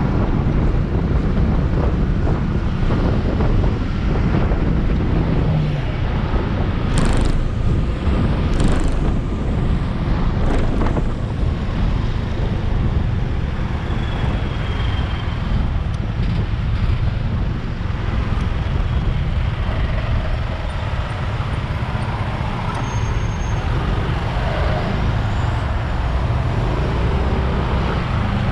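Riding noise on a Yamaha Aerox scooter in city traffic: wind on the microphone over a steady low rumble of engine, tyres and surrounding vehicles. Two short hisses come about seven and nine seconds in.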